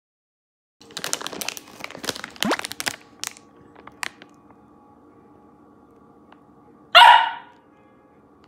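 Plastic dog-treat pouch crinkling as it is handled for about two seconds, followed by a few lighter crackles; then, about seven seconds in, a single loud bark from a Samoyed puppy begging for the treats.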